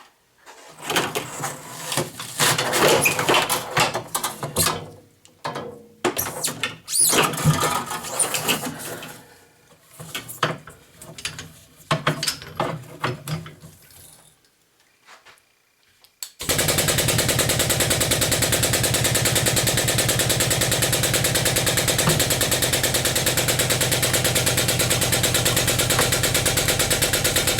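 Irregular metal clattering, knocking and scraping from work on a scrap refrigerator. About sixteen seconds in, a motor starts suddenly and runs steadily and loudly with a fast, even pulse.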